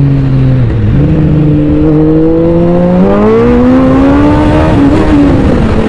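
Suzuki Hayabusa's inline-four engine under acceleration on the road: its pitch dips briefly about a second in, then rises steadily for a few seconds before levelling off. The engine is breathing through a freshly fitted K&N air filter.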